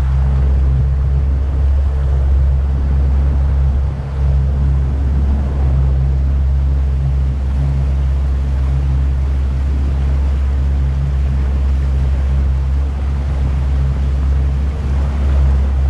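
Outboard motor running steadily at low speed, driving a small aluminium boat along, with a hiss of water and wind over it.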